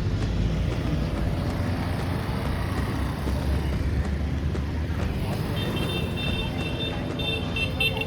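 Road traffic noise: a motor vehicle's engine rumbling under steady road noise, fading a little about five seconds in, when a broken series of high thin tones starts.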